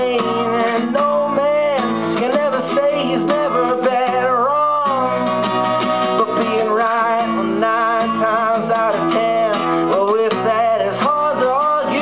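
Acoustic guitar strummed, with a man's voice singing over it.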